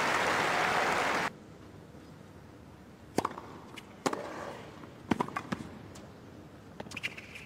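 Crowd applause that cuts off abruptly about a second in. Then a tennis rally on a hard court: sharp racket strikes and ball bounces, roughly a second apart.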